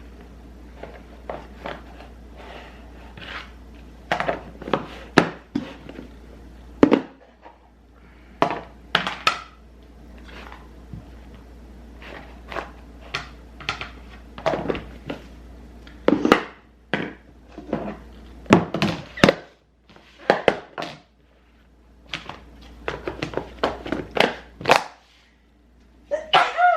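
Kitchen clatter: irregular knocks and thunks as containers, dishes and food items are handled and set down on a counter, over a low steady hum.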